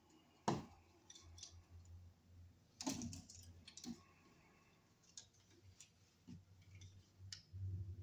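Scattered light clicks and taps of a screwdriver loosening a wall receptacle's green ground screw and the copper ground wire being unhooked. The sharpest click comes about half a second in, with a cluster near three seconds, over a faint low hum.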